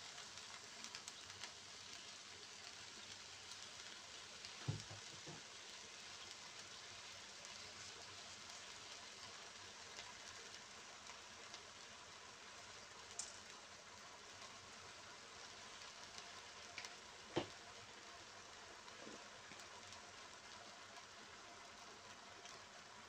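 Faint, steady sizzling of chicken gizzards cooking in a wok, broken by a few short knocks, the loudest about five and seventeen seconds in.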